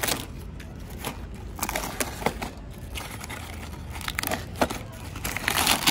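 Corrugated cardboard packaging being torn and pulled apart by hand: irregular ripping and crumpling, with a louder tear near the end.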